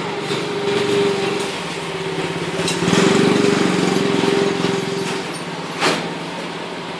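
A small engine running nearby with a steady hum, loudest about three seconds in and dying away a little after five seconds. A single sharp click near the end.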